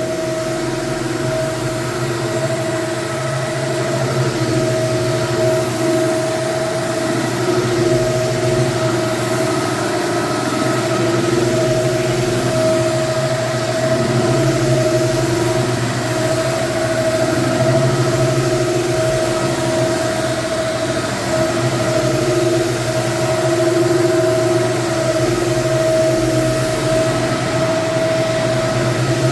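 Hardwood floor cleaning extractor running steadily, a constant motor hum with a steady whine under the suction, as it pulls neutral cleaner and dirty water back up from the wood floor.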